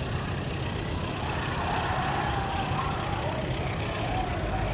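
Freight train of tarp-covered wagons rolling past slowly behind a diesel locomotive: a steady low rumble of wheels on rails, with a faint wavering whine.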